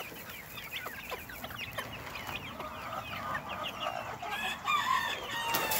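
A flock of hens clucking and chattering in many short, quick calls while they peck at scattered feed, with longer drawn-out calls near the end.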